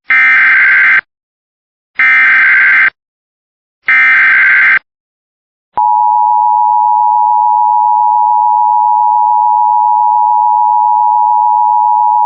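Emergency Alert System opening: three one-second bursts of SAME header data tones, buzzy and warbling, about a second apart. Then, about six seconds in, the steady two-tone EAS attention signal begins, the alarm that announces the tornado warning message.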